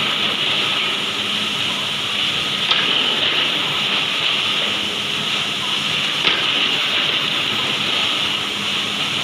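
Woodworking production-line machinery for MDF boards running steadily: a loud, even hissing noise over a low hum, with two sharp knocks, about three and six seconds in.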